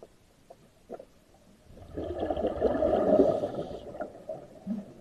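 Scuba regulator exhaust: a loud rush of exhaled air bubbling out underwater for about two seconds, starting a little under two seconds in, after a few faint clicks.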